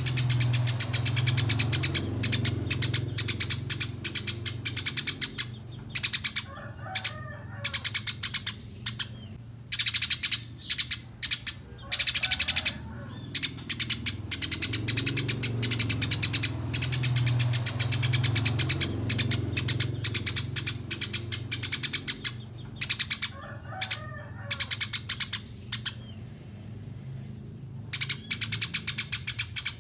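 Eurasian tree sparrows chattering in fast, rolling runs of sharp high chirps, broken by short pauses: the excited chatter of sparrows squabbling.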